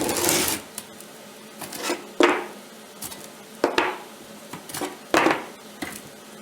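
Light-gauge steel angle being handled: a series of metallic clanks and knocks, with a longer scraping clatter at the start.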